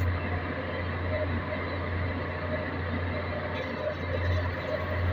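Stick (arc) welding on a main-engine exhaust valve housing to repair cracks, the arc crackling steadily, over a loud, steady low machine hum.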